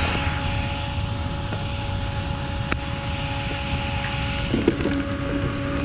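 A steady mechanical drone holding one constant pitch over low rumbling noise, with a single sharp click just under halfway through.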